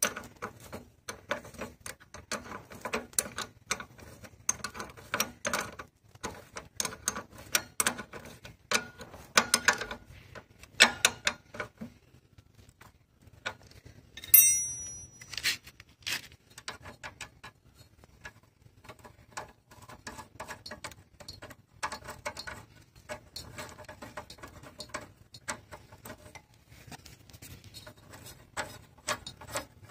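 Quick, irregular clicking and tapping of hand work on a motorcycle's rear drum brake arm and brake-rod adjuster nut, thickest in the first half, with one sharp ringing clink about halfway through.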